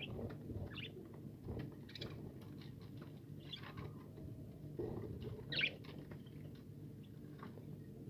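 Budgerigars giving short high chirps every second or two, the loudest about five and a half seconds in, over soft rustling and pecking as they feed on seed.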